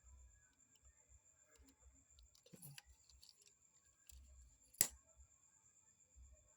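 Near quiet, with a few faint clicks and one sharp click a little before five seconds in, over a faint steady high-pitched whine.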